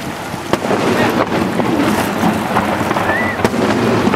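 Wind buffeting the microphone over a noisy harbour crowd, cut by three sharp bangs of daytime firework shells bursting, the last and loudest near the end.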